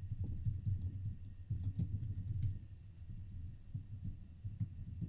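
Typing on a computer keyboard: an irregular run of quick key presses, with a brief lull a little past halfway.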